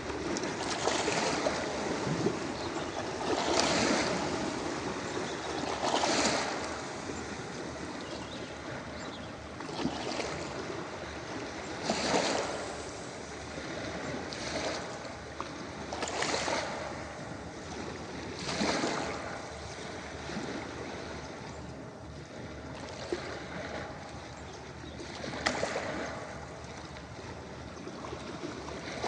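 Ocean waves breaking and washing on a beach, a surge of surf every few seconds over a steady wash of sea noise.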